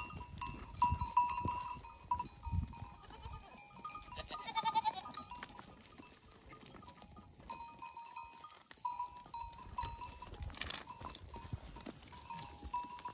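Sheep and goats of a herd bleating now and then: a quavering bleat about four and a half seconds in and a shorter one later.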